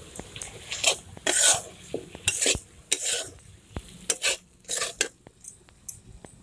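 A flat spatula stirring and scraping tomatoes, onions and chicken parts around a metal kadai, about six scraping strokes with small clicks, over a light sizzle of the frying food. The strokes thin out near the end.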